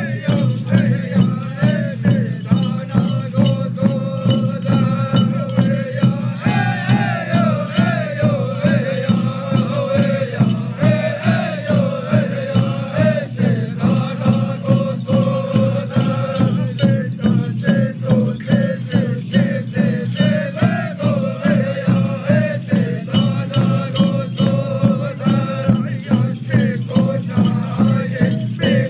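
A group of men singing a ceremonial chant in unison, accompanied by small hide hand drums struck with curved sticks in a steady quick beat, about two to three strokes a second.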